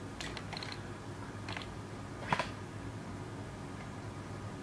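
Quiet room tone: a steady low hum with a few faint clicks, the clearest about two and a half seconds in.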